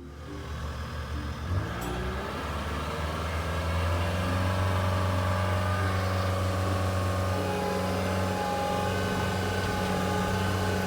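Cat 232D skid steer's diesel engine running, growing louder over the first few seconds and then holding steady.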